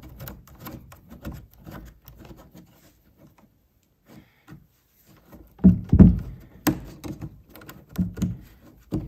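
Faint quick clicks and scrapes as a metal retaining nut is spun off the threaded cylinder of an old cabinet cam lock by hand; it turns freely rather than sticking on corrosion. About halfway through come several louder dull knocks of metal parts being handled.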